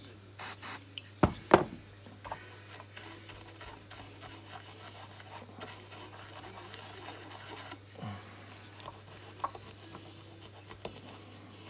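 A stiff brush scrubbing a circuit board wet with contact cleaner, its bristles rasping across the board in quick strokes that grow busier in the last few seconds. A few sharp knocks come in the first couple of seconds.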